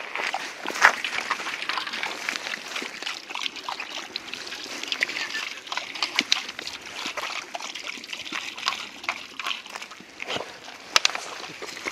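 Irregular crunching and slushy crackling of footsteps moving through wet snow, a dense run of small crackles and squelches.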